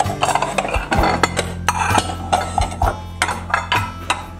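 Ceramic bowls and dishes clinking and knocking against each other and the cabinet shelf as they are handled, several sharp knocks a second.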